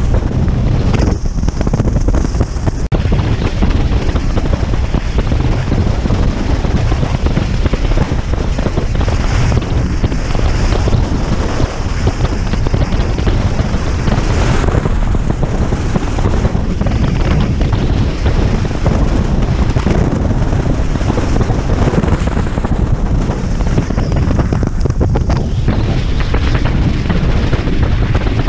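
Heavy wind buffeting on the microphone over the steady running of an AJP PR7 adventure motorcycle at road speed.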